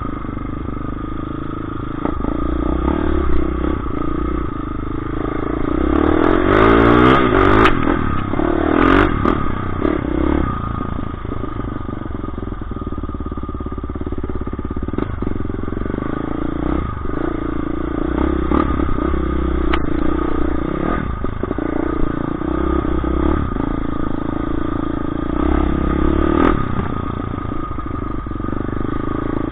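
Dirt bike engine running under way, revving up and down several times about six to nine seconds in, with clatter and knocks from the bike over rough ground.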